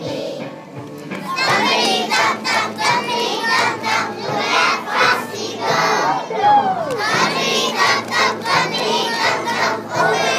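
A group of young children singing loudly together, close to shouting. One voice slides up and back down about six seconds in.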